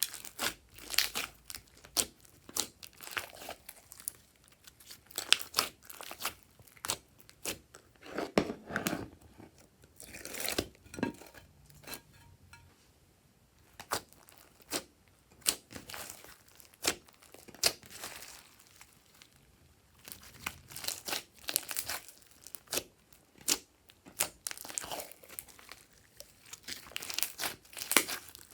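Glossy slime being squeezed and worked by hand: irregular clusters of sharp crackles and pops, broken by short quieter gaps.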